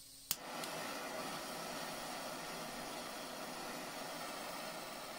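Handheld gas blowtorch lit with a single sharp click, then burning with a steady hiss.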